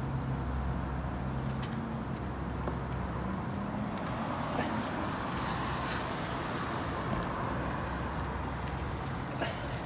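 Road traffic: a low vehicle engine hum that fades about three and a half seconds in, then tyre noise that swells and fades as a vehicle passes. There are a few light clicks near the end.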